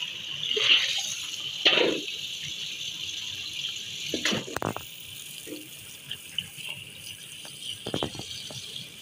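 Wet curtains being lifted and wrung by hand over a steel basin of soapy water: splashing and water streaming back into the basin in several bursts, the loudest a little under 2 seconds in, with more about halfway and near the end. A steady high hiss runs underneath.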